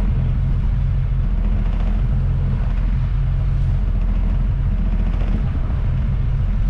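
A vehicle's engine running steadily with a low rumble, as heard while travelling.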